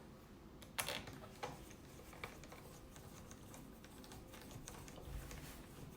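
Faint, light clicks and taps of small screws being set and driven into a laptop's bottom cover with a small screwdriver. The sharpest click comes about a second in.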